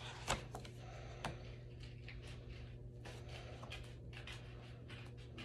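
Two sharp clicks about a second apart, then a few fainter clicks and light handling noise, over a low steady hum.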